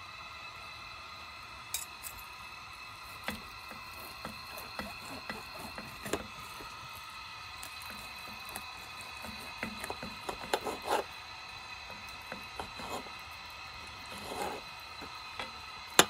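Knife and fork cutting roast lamb in a cast iron Dutch oven: scattered clinks and scrapes of steel against the pot, with soft wet squishing of the tender meat, busiest around the middle and ending with one sharp clink. A steady high whine sits underneath.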